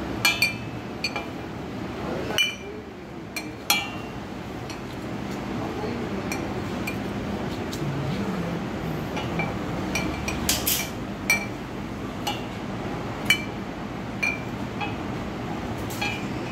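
Glass wine bottles clinking against each other and the metal parts of a running bottle labeling machine: sharp, ringing clinks at irregular intervals, about one a second, over a steady low machine hum, with a louder clatter about ten seconds in.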